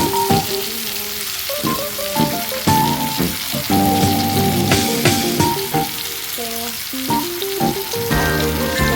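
Food sizzling steadily as it fries in a pan, under background music with a changing melody.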